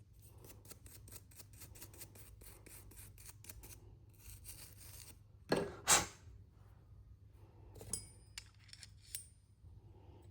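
Small metal parts and tools being handled during an angle grinder repair. A quick, even run of small clicks, about five a second, lasts nearly four seconds. Then come two sharp knocks half a second apart and a few light metallic clinks that ring briefly.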